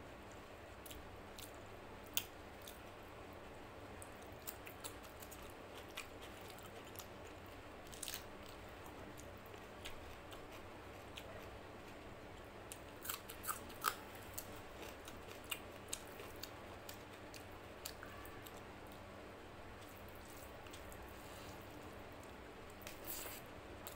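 Chewing and wet mouth clicks of someone eating rice and mutton curry by hand, with fingers squishing the rice into the curry. Soft clicks come scattered throughout, busiest about halfway through.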